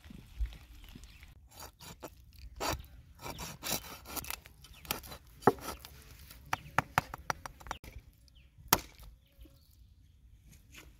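Kitchen knife cutting up a raw chicken on a wooden cutting board: the blade scrapes and saws through skin and joints, with irregular sharp knocks against the board, two of them louder than the rest.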